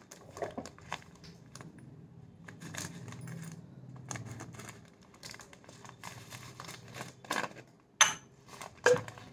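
Plastic spice packet rustling and crinkling in the hands, with small scattered clicks and clinks of dry seeds and a plastic jar being handled. Two sharper knocks near the end.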